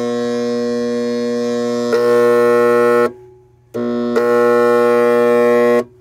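Stay-Rite Ultra Jet hot tub pump motor humming instead of running, a loud steady electrical hum with many overtones. It grows louder about two seconds in, cuts out around three seconds, comes back a moment later and stops near the end. The run capacitor has tested dead and the shaft turns freely, so the owner takes the capacitor for the most likely culprit.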